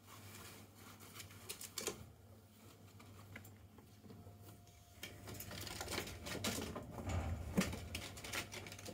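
Two ferrets scuffling at play: rapid clicks, scrabbles and rustles of claws and bodies on the plastic tunnel and floor mats, getting busier and louder about halfway through.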